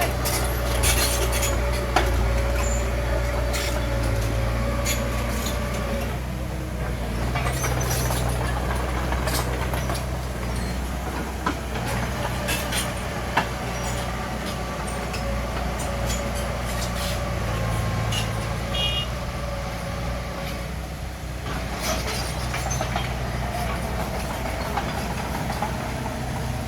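Bulldozer's diesel engine running steadily at work, with scattered sharp metallic knocks and a faint whine that comes and goes.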